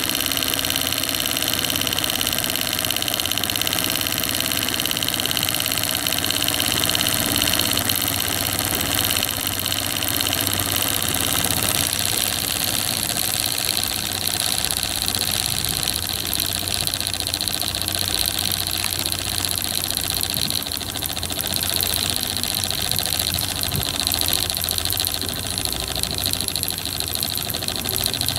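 Prototype Marten & Howes twin-cylinder vertical model steam engine running steadily under steam on test.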